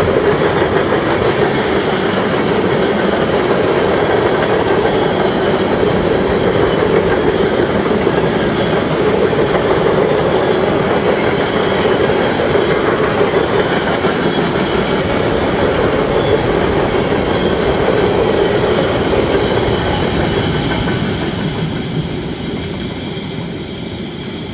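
Freight cars of a Canadian National manifest train rolling past close by, their wheels clattering steadily over the rail joints. The sound fades over the last few seconds as the end of the train passes and moves away.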